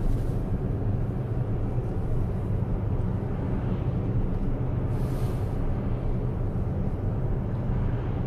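Steady low road and tyre rumble inside the cabin of a moving car, with a brief hiss about five seconds in.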